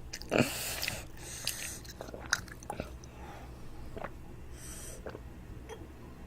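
Close-miked chewing and mouth sounds of a child eating toast: a short noisy burst about half a second in, then scattered small clicks and smacks.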